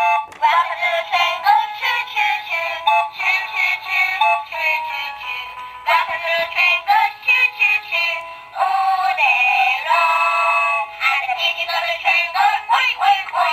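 Peppa Pig Grandpa Pig's train playset's electronic sound unit playing a sung tune through its small speaker. The sound is thin and tinny, with no bass, and the tune briefly pauses or changes about six and eight and a half seconds in.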